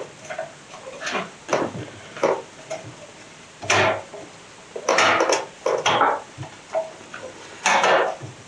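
Hand tools clicking and knocking against the generator's sheet-metal cover as its 8mm fasteners are worked loose: a string of irregular sharp clicks and clanks, some ringing briefly.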